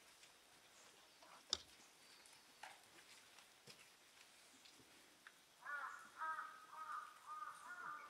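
Near silence with one sharp click about one and a half seconds in, then crows cawing in a run of repeated short calls from about six seconds in.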